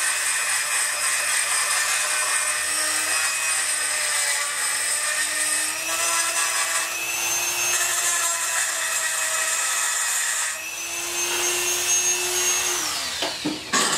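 Dremel 4000 rotary tool with a porting bit running at high speed, grinding out the port of a PK80 80cc engine cylinder for port matching. Its steady whine steps up and down a little as the bit loads, then winds down and stops near the end.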